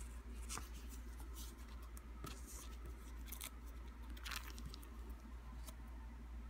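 Clear plastic photo-album sleeves crinkling as the pages are handled and turned, in a few short irregular crackles over a steady low hum.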